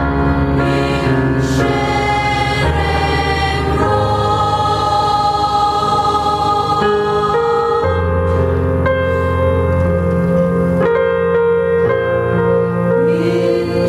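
Church choir of women and men singing a hymn together in parts, holding long chords that change every few seconds.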